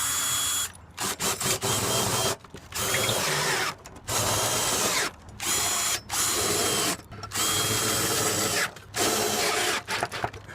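Power drill driving screws through a tile-roof solar mounting foot into the roof truss, running in repeated bursts of about a second each with short pauses between them.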